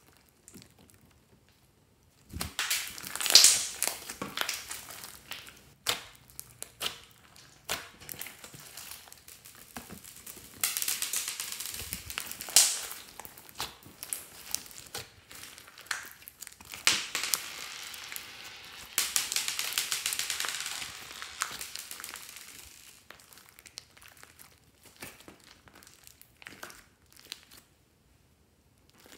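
Hands squeezing, stretching and folding a big blob of fluffy slime mixed with beads and clay, giving crackly, sticky crinkling and popping noises in uneven bursts. The handling sounds die away near the end.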